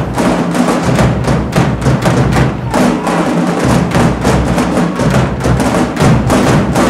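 Marching band drumline playing a cadence together: snare drums, marching bass drums and hand cymbals striking in a loud, fast, dense rhythm.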